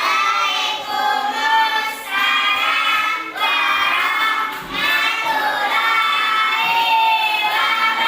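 A group of children singing a song together in high voices, in sung phrases with short breaks every second or two.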